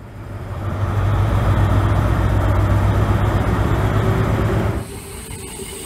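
Class 43 HST power car's diesel engine running as the train comes into a station, a steady low drone that swells in over the first second. About five seconds in it cuts to a quieter rail sound with a faint high whine.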